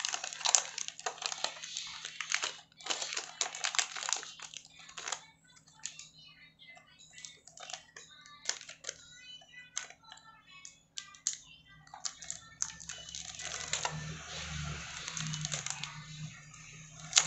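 Clear plastic shrink-wrap being picked at and peeled off a small cardboard box: irregular crackles and clicks, with a denser run of crinkling near the end. A faint steady low hum runs underneath.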